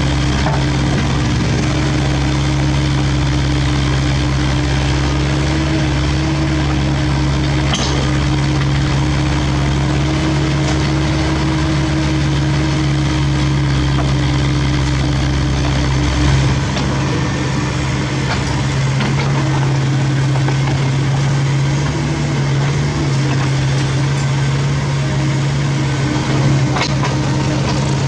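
Diesel engine of a CAT 307.E2 mini excavator running steadily under hydraulic work as the machine swings and dumps an uprooted tree. The deep rumble underneath drops off a little past halfway, and there are a couple of faint knocks.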